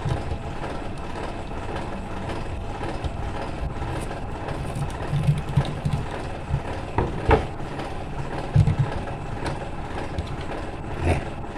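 A screwdriver turning the terminal screw of a miniature circuit breaker while wires are handled on a wooden workbench: scattered knocks and clicks, several about halfway through and one more near the end. A steady low background rumble runs under them.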